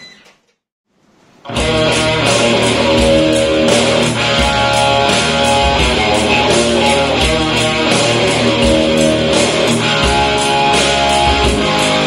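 Guitar-driven rock music with a steady beat. It starts suddenly about one and a half seconds in after a moment of silence, played over a Konzert SBX-5.1CH 5.1-channel soundbar home theater system in Bluetooth mode.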